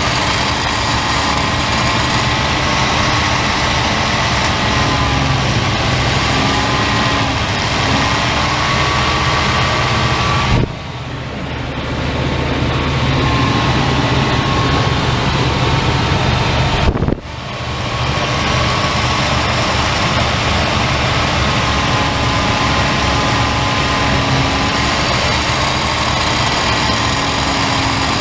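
1994 Chevy Silverado's 5.7-litre (350) V8 running at a fast idle of about 2,000 RPM, held by a pedal clamp while Seafoam is sprayed into the intake, its pitch wavering slightly. Twice the sound dips abruptly and recovers over a second or so.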